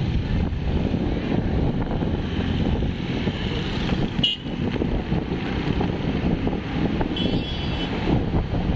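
Motorcycle riding through city traffic: a steady rumble of engine, road and wind noise, with two short high-pitched tones, one about four seconds in and one near the end.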